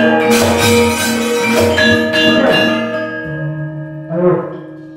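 Javanese gamelan ensemble playing: bronze metallophones and gongs with kendang drum strokes. The playing dies away about three seconds in, leaving one ringing tone, and a short voice sound cuts in near the end.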